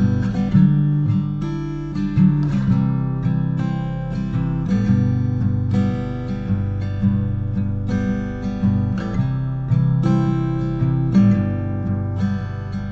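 Background music: an acoustic guitar strumming chords at an easy pace.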